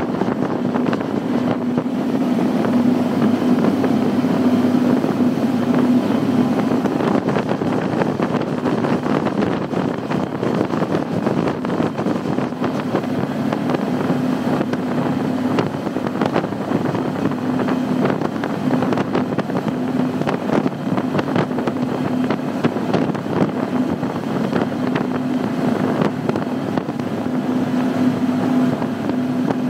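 Triple Mercury 600 hp V12 Verado outboards running steadily under way, a constant engine drone with one held low tone, over the rush of water and wind.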